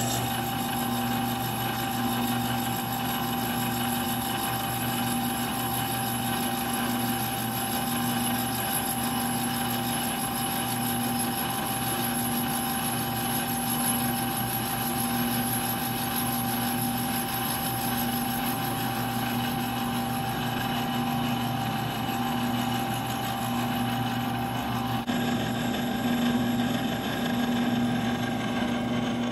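Milling machine spindle running a quarter-inch end mill through the aluminium back face of a GT22 reverse compressor wheel, machining it down to the correct superback height. It is a steady mechanical running sound with a constant tone and a slowly pulsing hum underneath, and its pitch shifts slightly near the end.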